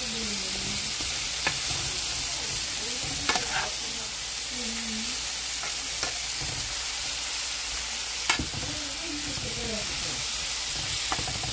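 Asparagus sizzling in hot oil in a frying pan while being stirred, the utensil scraping and knocking against the pan now and then.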